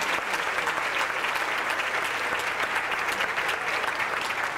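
Theatre audience applauding steadily after a lot is sold at auction, a dense patter of many hands clapping.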